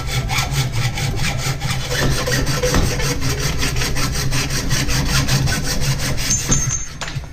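A hand hacksaw cutting through a bicycle fork's metal steerer tube in quick, even back-and-forth strokes that stop near the end.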